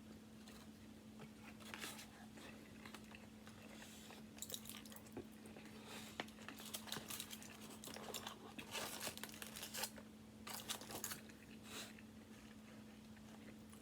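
A person chewing and biting into barbecued chicken close to the microphone, with irregular wet, crunchy mouth noises that come thickest in the middle. A steady low hum runs underneath.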